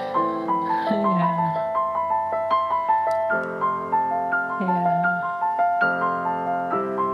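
Background piano music: a steady stream of notes over held chords that change every second or so.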